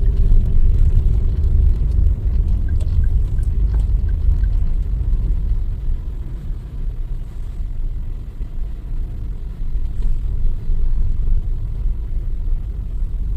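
Car moving slowly, heard from inside the cabin: a steady low engine and road rumble that eases slightly partway through. A few faint, quick ticks sound about three seconds in.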